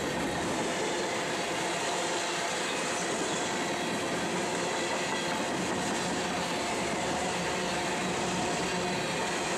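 Covered hopper cars of a freight grain train rolling past close by: a steady, unbroken noise of steel wheels on the rails, with a few faint steady ringing tones in it.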